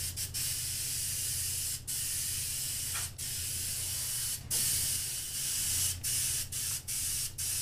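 Airbrush spraying silver pearl paint in a steady hiss, broken by several short pauses.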